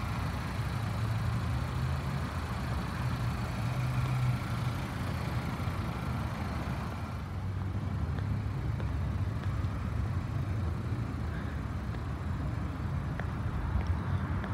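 2016 Volkswagen Jetta Hybrid standing switched on, giving a steady low hum. A faint higher whine in it dies away about halfway through.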